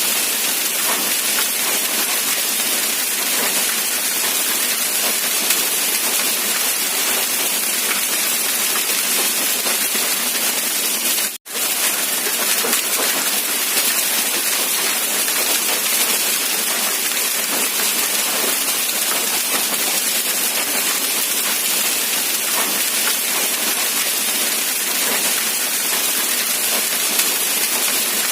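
Steady rain falling, an even hiss of many drops with no thunder. The sound cuts out for a split second about eleven seconds in.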